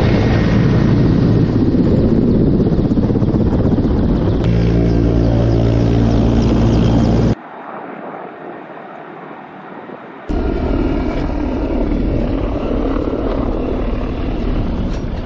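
Mi-8AMTSh transport helicopter's rotors and twin turboshaft engines running, a loud steady drone. A little past halfway it drops abruptly to a quieter level for about three seconds, then comes back loud.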